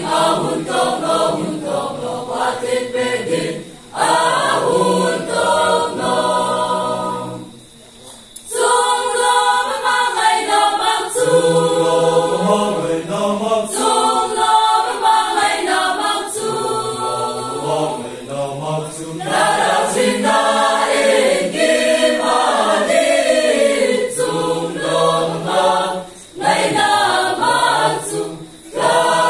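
Mixed choir of young men's and women's voices singing a hymn-like song in parts, with brief pauses between phrases, the longest about eight seconds in.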